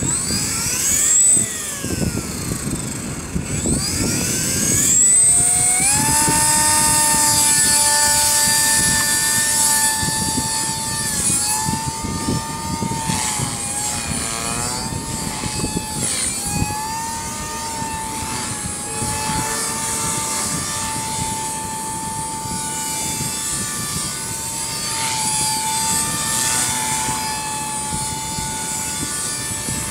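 Walkera V200D03 electric RC helicopter spooling up: its motor and rotor whine rises, falls back, then rises again about four seconds in. After that it holds a steady high whine with small pitch dips while flying, over gusty wind on the microphone.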